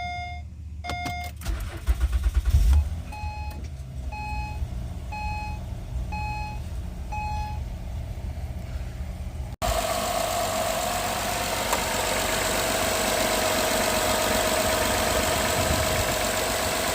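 2010 Acura TL's V6, jump-started after an alternator replacement, cranks and catches about two seconds in while the car's warning chimes beep. The chime then beeps about once a second over the running engine. From about the middle, the engine runs steadily and louder, with a steady whine over it.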